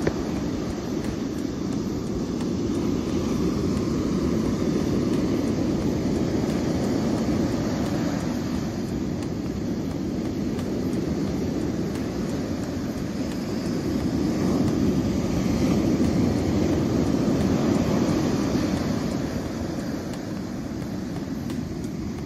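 Ocean surf breaking on the beach: a steady rushing noise that swells and eases slowly as the waves come in.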